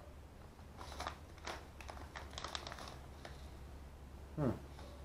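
Plastic seasoning packet crinkling as it is handled, in short irregular rustles, with a brief falling murmur of a man's voice about four and a half seconds in.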